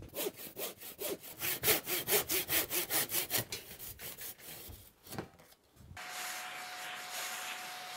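Handsaw sawing across an MDF-core wood slat panel in quick even strokes, about four a second, which fade out around four seconds in. From about six seconds a steady hiss with a faint hum takes over.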